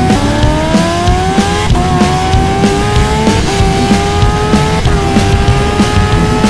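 Turbocharged Suzuki Hayabusa engine at high revs, accelerating hard through the gears: its pitch climbs in each gear and drops at three quick upshifts, at about 1.5-second intervals, over a music track.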